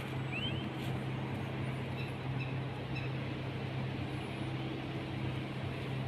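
A steady, low engine-like hum running without change, with a few short bird chirps over it.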